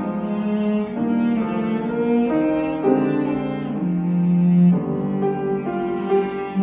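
Cello and piano playing a slow elegy, the cello bowing sustained, singing notes that move every second or so over the piano, with one longer, louder low note held about four seconds in.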